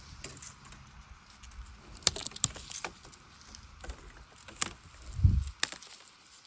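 Dry, partly burnt bamboo stems rustling and knocking together as a gloved hand pushes through a bamboo clump to get at the young shoots, with about four sharp snaps or cracks and a dull thump about five seconds in.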